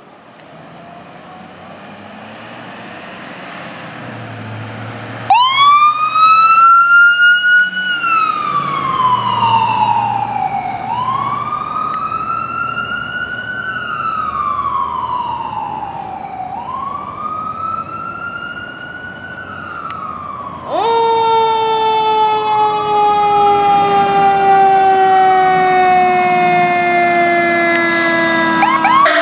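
Fire apparatus responding with sirens: after a rising vehicle rumble, an electronic siren starts a wail about five seconds in, sweeping up and slowly down roughly every five seconds. About twenty seconds in, a louder, deeper mechanical siren howl, a Federal Q, cuts in and slides slowly down in pitch as it coasts.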